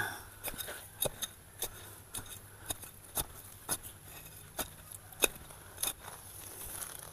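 A steel hand digging tool being jabbed again and again into loose soil mixed with compost and sand, loosening it. It gives short, sharp scraping knocks about every half second, unevenly spaced.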